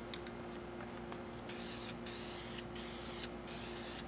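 Aerosol spray-paint can spraying paint onto a primed steel motorcycle gas tank in short passes: about four bursts of hiss with brief breaks between them, starting about a second and a half in. A few faint ticks come before it, and a steady low hum runs underneath.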